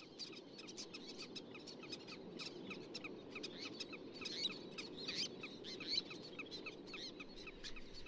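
Shorebirds calling: a rapid, overlapping chatter of short, high, falling notes, several a second, over a steady low background hiss.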